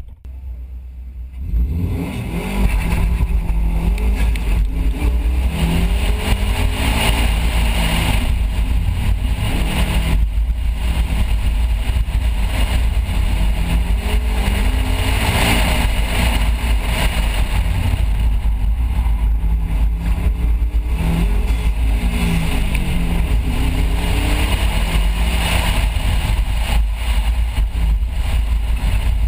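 Subaru Impreza WRX STi's turbocharged flat-four running hard through an autocross course. The revs rise and fall again and again as it accelerates and brakes, after a brief lull about a second in.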